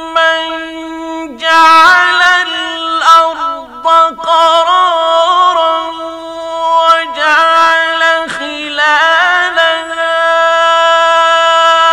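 A male Qur'an reciter chanting in the ornamented mujawwad style, holding long melodic notes with wavering turns and a few brief breaks for breath.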